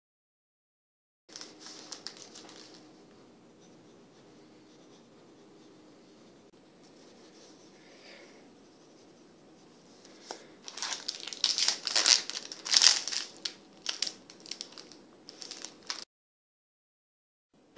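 A foil snack wrapper being handled, crinkling loudly in a quick, irregular run of sharp rustles for about five seconds. It starts about ten seconds in, after a stretch of faint room tone.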